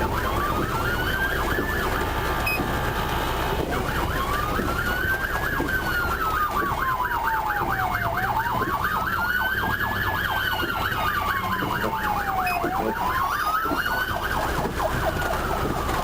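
Police car siren wailing, rising and falling slowly about every four to five seconds, with a fast warbling siren sounding over it. A steady rush of road and engine noise runs underneath.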